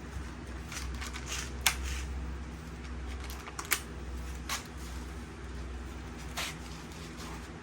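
A few sharp clicks from small metal and plastic door-lock parts being handled and fitted, over a steady low hum.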